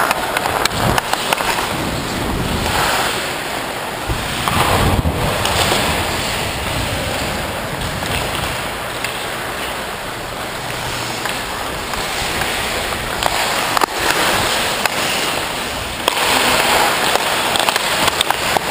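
Ice hockey skate blades carving and scraping the ice, with wind rushing over a player-worn microphone as he skates. A few sharp clicks of stick on puck stand out, one about fourteen seconds in.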